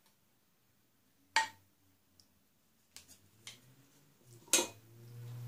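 A wooden spoon and fork knocking sharply against a steel pot and a glass baking dish while minced-meat filling is spooned into fried eggplants, four knocks in all. A low hum comes in near the end.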